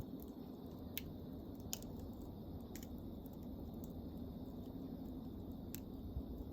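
Wood campfire burning, a steady low rush of flame with a few sharp, scattered crackles and pops from the burning wood.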